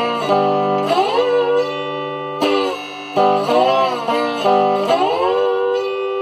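Electric guitar played with a slide in open G tuning: a blues fill of several short phrases, the notes sliding up into held pitches.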